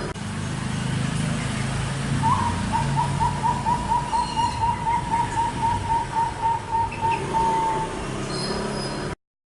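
A bird calling a rapid series of short, evenly spaced notes, about four a second, held on one pitch for several seconds, over a steady low hum. The sound cuts off abruptly near the end.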